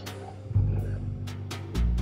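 Background music with held bass notes that change every second or so and a few percussion hits.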